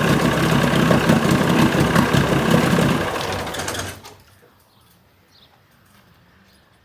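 A 1980 Chrysler 45 hp two-stroke outboard motor runs steadily and evenly, then is shut off about three seconds in. It dies away within a second, leaving near quiet.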